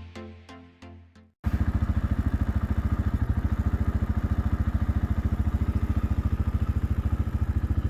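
Plucked background music, cut off abruptly about a second and a half in by an engine idling with a steady, rapid low pulse.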